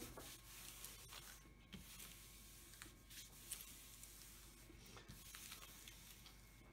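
Faint rustling of palms rubbing over the plastic cover sheet of a diamond painting canvas, smoothing out air pockets under it.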